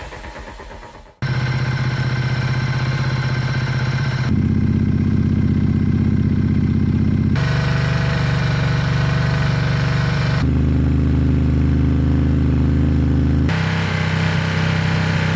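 Ducati Diavel 1260 S's V-twin idling steadily in back-to-back clips that switch about every three seconds, alternating between the stock exhaust and a baffle-less Termignoni exhaust. Before that, a whoosh transition fades out about a second in.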